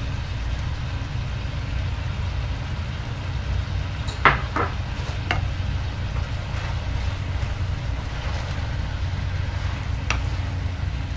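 Fish head with tomato sauce cooking in a metal wok, sizzling faintly over a steady low rumble, with a few sharp clicks of a spatula against the wok about four to five seconds in and again near the end.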